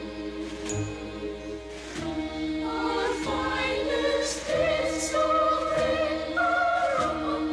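Choral music: a choir singing long, held notes that step upward in pitch, over instrumental accompaniment.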